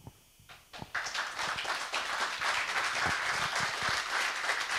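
Audience applauding: a few scattered claps, then full applause from about a second in.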